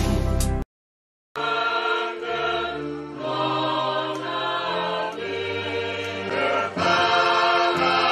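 Music: a loud passage breaks off less than a second in, a moment of dead silence follows, then a choir sings a hymn in long held notes.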